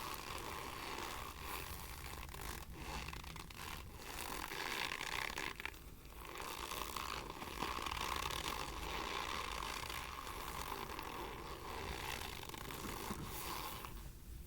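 Argo cornstarch crunching, a near-continuous gritty scraping close to the microphone with a brief break about six seconds in, stopping near the end.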